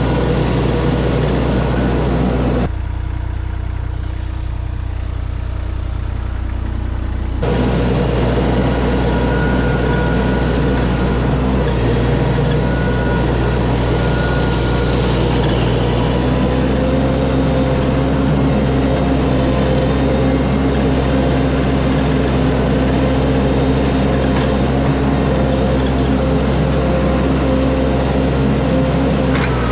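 Mini skid steer's engine running steadily while the machine works, with a quieter stretch for a few seconds early on and a shift in engine pitch about halfway through.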